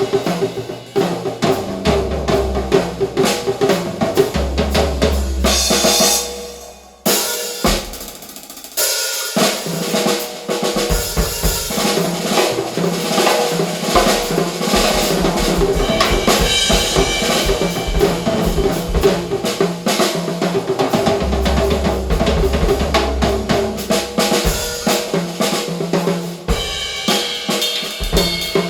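Recorded drum-kit percussion track played loud through a hi-fi system of ESS AMT-1 loudspeakers with Heil air-motion tweeters and two REL S/812 subwoofers: kick, snare, hi-hat and cymbals in a steady dense rhythm. The drums thin out and drop briefly about a quarter of the way in, with a single sharp hit, then the full kit comes back in.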